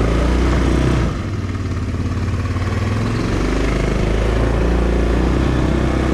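Four-wheeler (ATV) engine running, not yet warmed up in the freezing weather. It drops briefly in level about a second in, then runs steadily again.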